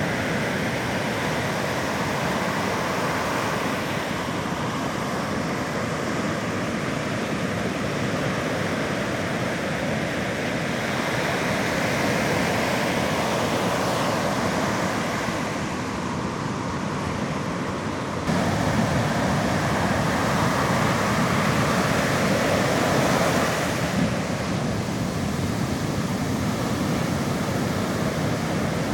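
Sea surf washing onto the shore, a steady rushing noise that jumps suddenly louder about two-thirds of the way through.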